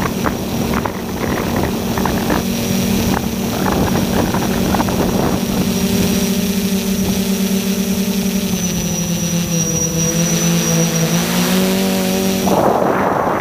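A tricopter's three SunnySky 1400KV brushless motors and props buzz steadily in flight, heard from the onboard camera, with the pitch sagging and wavering as the throttle changes. About a second before the end the buzz gives way to a rough rushing noise.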